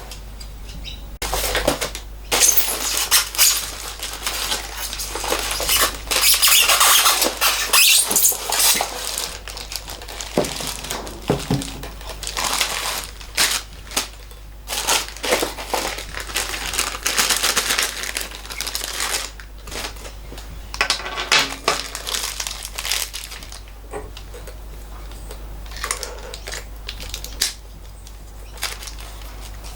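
Metal parts and hand tools being handled on a workbench: irregular clinks, knocks and rattles with stretches of scraping and rustling.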